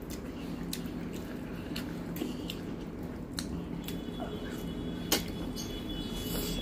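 Eating rice and curry by hand: wet squishing of fingers in the food and chewing, with scattered sharp mouth clicks, one louder about five seconds in. A steady low hum runs underneath.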